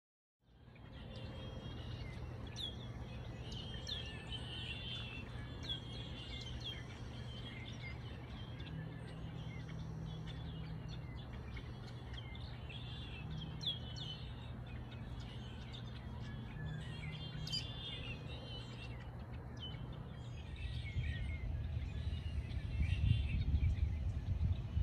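Small birds chirping and calling repeatedly, short quick chirps, over a steady low outdoor rumble that grows louder near the end.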